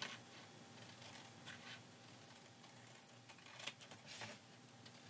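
Faint scissors trimming paper: a few quiet snips and paper handling over low room tone.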